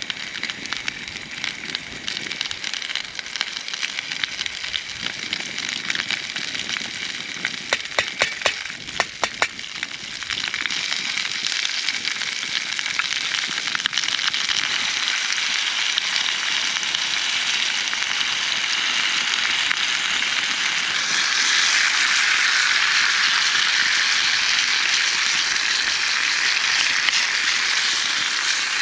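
Crackling over a campfire, with a handful of sharp pops about eight to nine seconds in. About ten seconds in a steady sizzling hiss takes over, and it grows louder a little past twenty seconds in.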